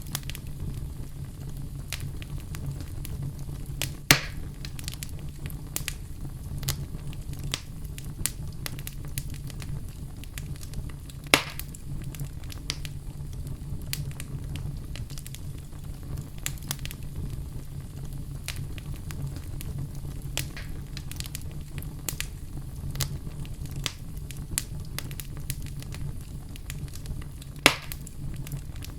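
Wood fire burning, a steady low rumble of flames with frequent small crackles and three louder pops from the burning wood.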